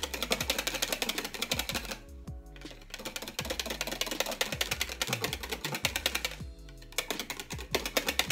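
Wire balloon whisk beating cream by hand in a mixing bowl: rapid clicking and scraping of the wires against the bowl, pausing briefly twice, over background music with a steady beat.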